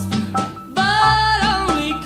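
Recorded 1950s rockabilly song: a woman sings with the band, dipping briefly about half a second in, then holding one long note.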